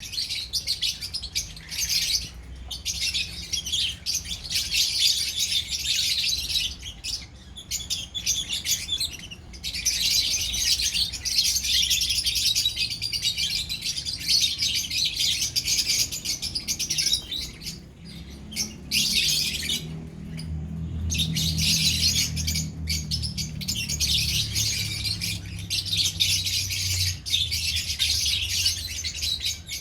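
A colony of lovebirds chattering: many rapid, high-pitched chirps and squeaky calls overlapping, broken by a few brief pauses. A faint low hum runs underneath during the second half.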